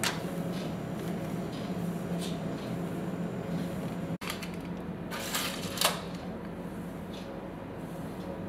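A spatula spreading batter across a parchment-lined baking tray: soft scraping and paper rustle with a few light knocks, two of them sharper about five to six seconds in, over a steady low hum.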